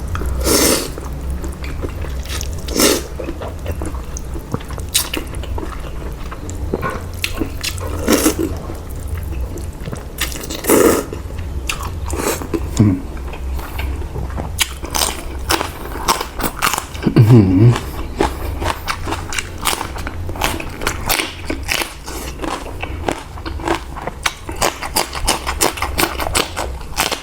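A person eating noodle soup close to the microphone: irregular slurps, chewing and mouth smacks, with a couple of short vocal sounds partway through, over a steady low hum.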